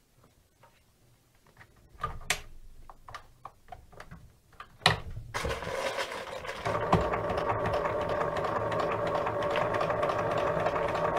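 Scattered clicks and knocks as leather is fitted under the presser foot, then about five seconds in a Bernina sewing machine starts and runs steadily, its needle stitching without thread through several layers of natural leather. It gets louder about a second and a half after starting.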